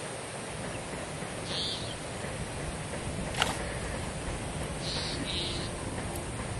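Steady outdoor rustle and wind-like hiss, with a single sharp click about halfway through and a few short, high hissing chirps.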